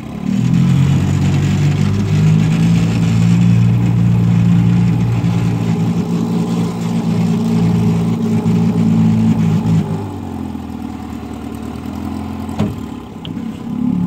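1960 Evinrude Fisherman 5.5 hp outboard, a twin-cylinder two-stroke, running in reverse. It is throttled up about half a second in and held steady, then eased back to a lower idle at about ten seconds. A single sharp click comes near the end.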